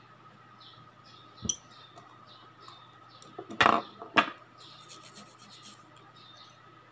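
Small metal manicure tools clinking and clattering as they are handled, put down and picked up: a light click about a second and a half in, a louder clatter a couple of seconds later, then a brief quick rattle.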